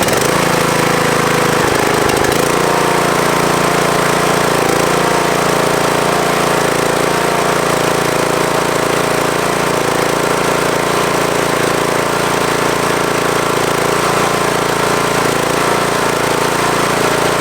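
Craftsman T110 riding mower's Briggs & Stratton 17.5 hp engine running just after being started off a jump pack. It is a little uneven for about the first two seconds, then runs steadily.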